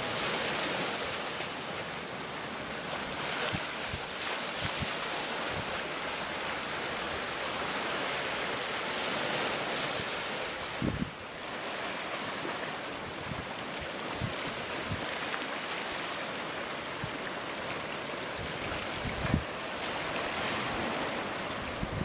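Pacific Ocean surf washing over and around shoreline rocks, a steady rushing wash of breaking water, with a few brief low thumps of wind on the microphone.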